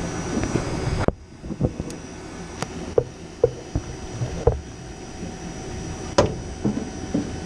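Steady mechanical hum of HVAC equipment that drops sharply about a second in and carries on more quietly, with scattered sharp clicks and knocks of tools and fittings being handled.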